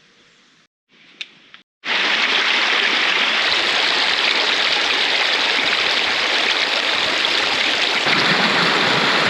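Rushing water, a loud steady rush that starts suddenly about two seconds in, after a short near-silent stretch.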